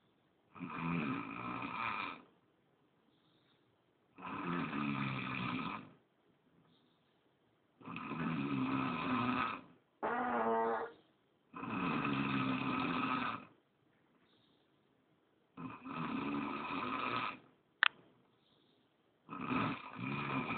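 A sleeping person snoring: six long, rasping snores, one about every four seconds. Once a short humming note follows straight after a snore, and near the end there is a single sharp click.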